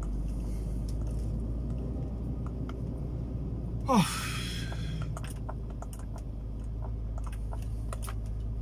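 Heard from inside a truck cab: the engine runs with a steady low rumble while the cab gives light scattered rattles over a rough road. About four seconds in comes a short falling squeak and a hiss lasting about a second.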